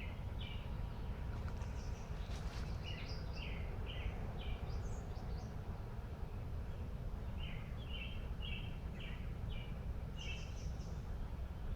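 Songbirds singing: several runs of short repeated notes, about two a second, with a few thinner, higher calls between them, over a steady low background rumble.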